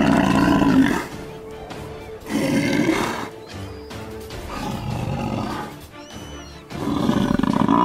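An African buffalo pinned down by lions bellowing in distress, several long moaning calls, the last one starting about seven seconds in. It is a distress call that can bring the rest of the herd back. The lions growl over the kill.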